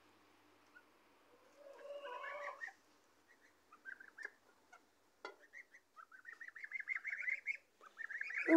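Goslings, young domestic geese, calling softly: one short call about two seconds in, a few brief peeps around four seconds, then a fast wavering run of calls that rises in pitch from about six seconds.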